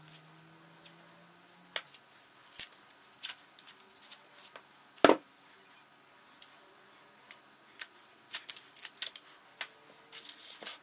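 Dry onion skin crackling and tearing as an onion is peeled with a kitchen knife, with irregular small clicks of the knife and skins on a wooden cutting board. One sharper knock about five seconds in is the loudest sound.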